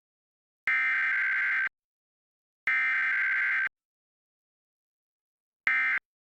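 Emergency Alert System SAME data bursts: harsh, modem-like digital screeches around 1.5–2 kHz. Two one-second bursts come a second apart, the repeats of an EAS test's header code, and a shorter burst near the end begins the end-of-message code.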